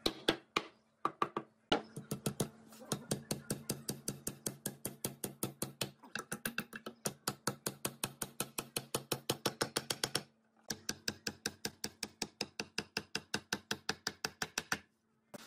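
Steel hammer striking a solid tree-stump table leg again and again, about five blows a second, knocking a round log rail home in its joint. The blows stop briefly a couple of times.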